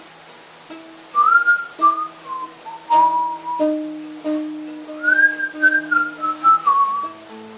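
Whistling a slow melody in a few phrases over fingerpicked classical guitar. The whistled line comes in about a second in and fades out near the end, leaving the guitar alone.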